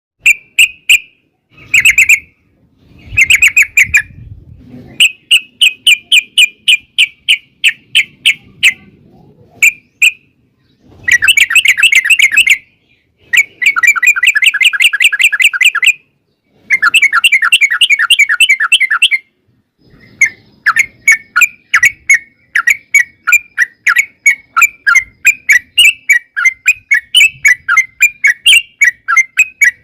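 Yellow-vented bulbul (trucukan) singing: loud bubbling chatter in short bursts at first, then long, rapid rolling runs of notes, the last one running unbroken for about ten seconds.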